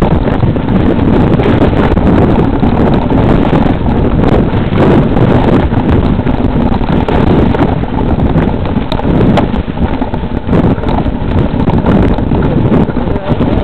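Wind and riding noise buffeting the microphone of a camera on a moving mountain bike over a rough, leaf-covered dirt trail: a loud, steady rumble with frequent small knocks and rattles from the bumpy ground.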